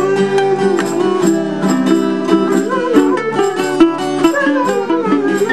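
Background music played on plucked string instruments, a steady run of quick picked notes.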